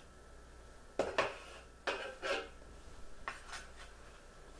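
Chef's knife chopping garlic cloves on a cutting board: a few irregular knocks of the blade on the board, with short scrapes between them.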